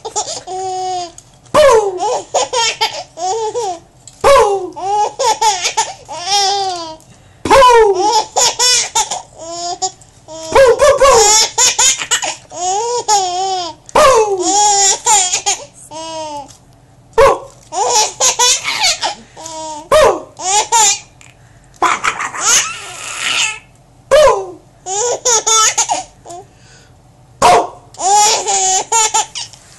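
A baby laughing in repeated high-pitched peals of giggling, one burst every second or two. About two-thirds of the way through there is a longer breathy, hissing noise.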